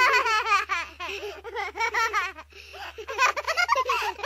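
A baby giggling and laughing in short, high-pitched bursts.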